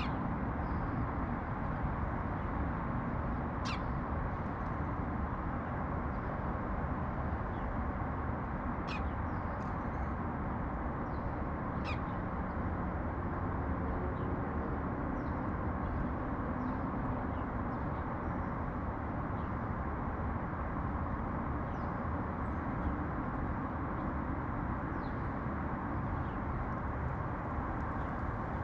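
Steady low rumble of city traffic, with a few short, high chirps from sparrows scattered through it, most of them in the first half.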